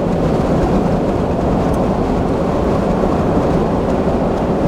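Steady rush of wind over the microphone and road noise from a vehicle driving at highway speed, heard through an open side window.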